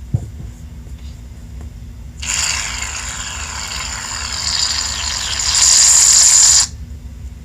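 Aerosol can of shaving cream spraying foam: one long hiss that grows louder in its last second, then cuts off suddenly.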